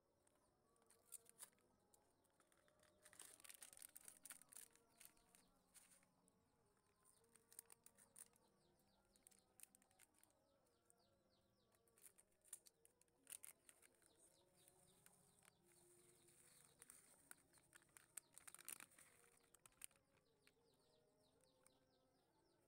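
Near silence, with faint scattered clicks and ticks.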